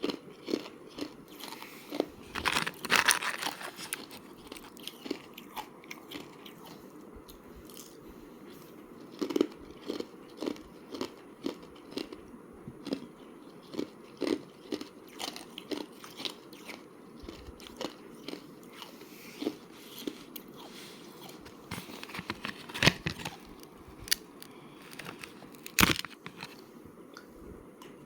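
Close-up crunching of thin slab ice being bitten and chewed: a steady run of crisp cracks and crunches, with bigger bites standing out about three seconds in and again near the end.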